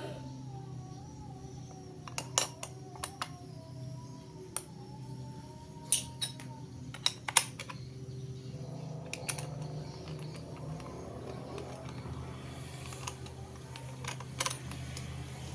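Scattered sharp clicks and taps of small hard parts being handled, over a steady low hum. A few seconds of soft rubbing come in the middle.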